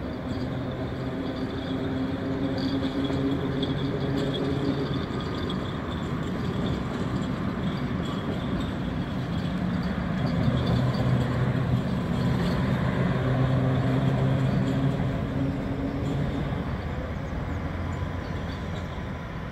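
Locomotive running past, a steady engine drone with a few held low tones that shift in pitch about halfway through.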